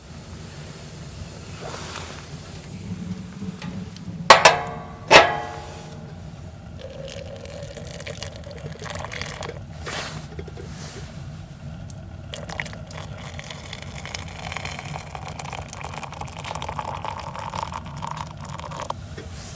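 Two sharp metal clanks with a ringing tone, less than a second apart, about four seconds in, over a steady low hum.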